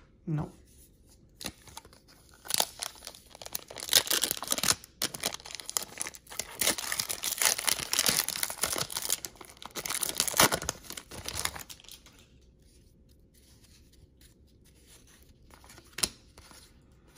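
A basketball card pack wrapper being torn open and crinkled, a dense run of rustling and crackling that starts about two seconds in and lasts about nine seconds. Near the end there is a single tap.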